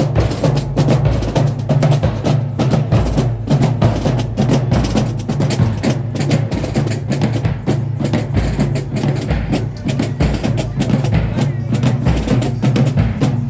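High school marching band drumline playing a fast cadence: dense rapid snare and rim strikes over low bass drum hits.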